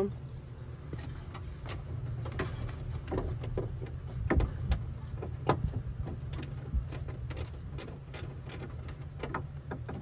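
Irregular light clicks and knocks of a wrench and hands working inside a pickup truck's door shell, loosening the bottom 10 mm bolt of the exterior door handle, over a steady low hum.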